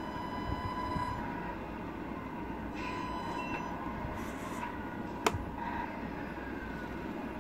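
Tamiya Scania radio-controlled truck running: a steady engine-like rumble with a faint wavering whine as the truck creeps forward, and one sharp click about five seconds in.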